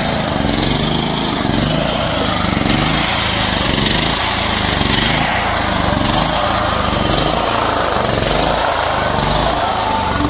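Small portable generator engine running steadily.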